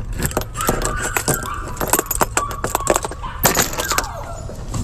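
A door handle and latch rattling and clicking as a door is opened, with faint high whining from hungry puppies behind it.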